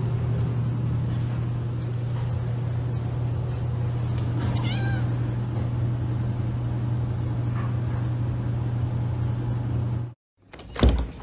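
A cat meows once, briefly, about halfway through over a steady low hum. The sound cuts off near the end, followed by a single thump.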